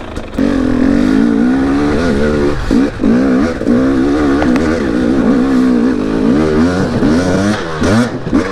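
Two-stroke dirt bike engine under riding load, its pitch rising and falling again and again as the throttle is worked on and off.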